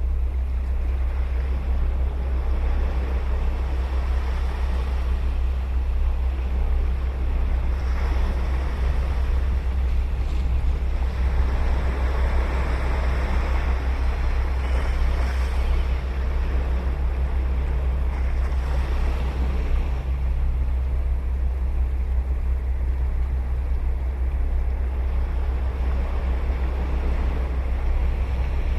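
Ocean surf breaking and washing ashore, a continuous wash that swells louder for a few seconds around the middle. A steady low rumble of wind on the microphone runs underneath.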